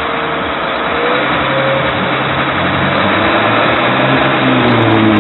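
Amkodor 333B wheel loader's diesel engine running under load as it tows a stuck off-roader out of the water. A steady whine stops about a second in, and the engine note rises in pitch from about three seconds in.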